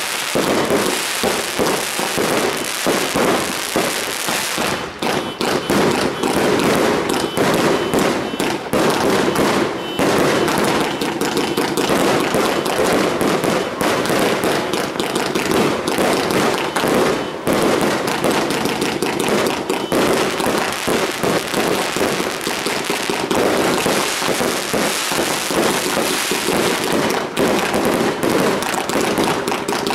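An Eclipse 260-shot firework cake firing without a break: many quick, overlapping bangs of launching and bursting shots with crackling between them.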